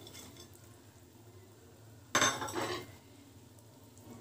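Kitchenware clattering against a metal frying pan as fried prawns are tipped into coconut-milk curry and stirred, with one short, louder clatter about two seconds in.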